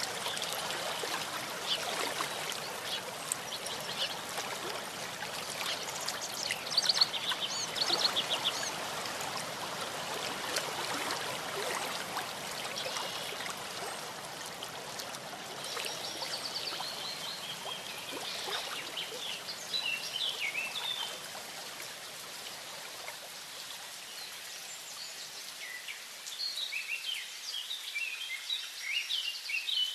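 A small stream running steadily, with songbirds chirping over it in short bursts several times, most busily near the end. The rush of the water grows thinner and lighter about two-thirds of the way through.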